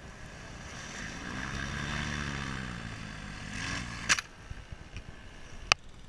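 Paramotor engine revving up and easing back down over a few seconds, its pitch rising then falling. Two short sharp knocks follow, about four seconds in and near the end.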